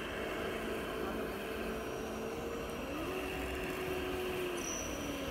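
Scale RC crawler's electric motor and gearbox whining as it crawls slowly over uneven ground. The pitch steps up about three seconds in and drops back shortly after, following the throttle.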